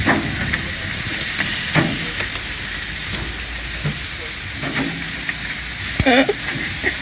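Steady sizzling hiss of food cooking over high heat, with a sharp knock about six seconds in.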